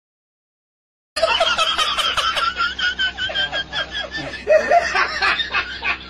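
Silence for about a second, then high-pitched laughter starts suddenly: quick, repeated giggles and snickers that run on without a break.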